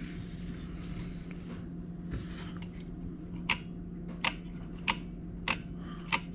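Small sharp clicks from an antique Kodak No. 1A folding pocket camera being handled, about one every two-thirds of a second through the second half, over a low steady hum.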